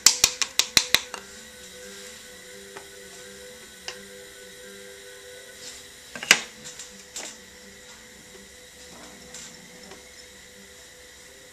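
Wooden paddle slapping the sides of a leather-hard clay cup to flatten and square them: a quick run of about seven sharp slaps in the first second, about five a second. After that a faint steady hum, a few light taps, and one loud sharp knock about six seconds in.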